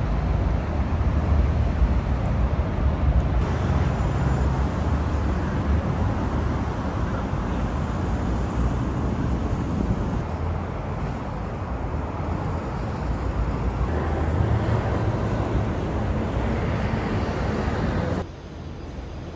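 Steady city road traffic: cars and vans running along a multi-lane road, a continuous rumble of engines and tyres. It drops off suddenly to a much quieter background near the end.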